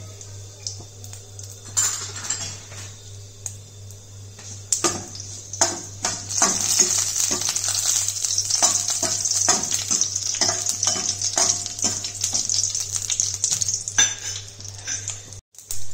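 Mustard seeds and dried red chillies sizzling in hot oil in a stainless steel kadai for a tempering, with many sharp clicks as a metal spoon stirs and scrapes the pan. The sizzle grows louder about five seconds in.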